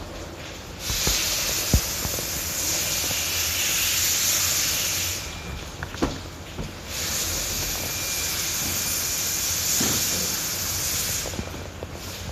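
Compressed air from a Toshiba TOSCON SP10 air compressor hissing out in two long blasts of about four seconds each, starting and stopping abruptly, with a few sharp clicks around them.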